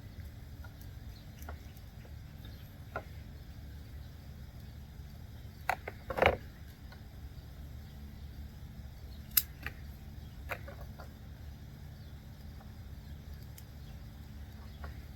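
Scattered light clicks and taps from handling the plastic door-trim panel and lock switch while working them loose, over a low steady hum. The loudest knock comes about six seconds in, with a sharp click a few seconds later.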